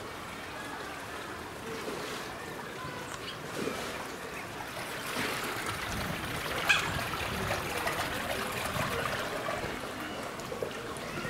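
Water trickling and running steadily through a shallow man-made pond. A single sharp click sounds a little past halfway.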